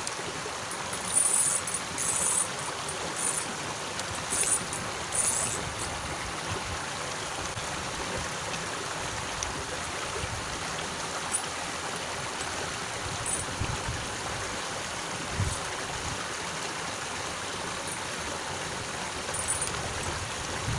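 Water of a small ditch stream flowing steadily, an even rushing of current over its rocky edge. A few clusters of short, high-pitched chirps come through in the first several seconds.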